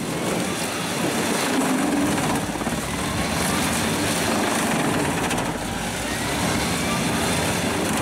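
Pezzolato truck-mounted wood chipper running under load as a log is fed in and chipped: a steady, loud drone of engine and cutter.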